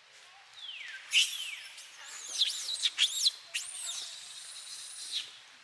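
Infant long-tailed macaque crying for its mother: a run of high, thin squealing calls that slide down and arch up and down in pitch, the loudest about a second in and again around three seconds in.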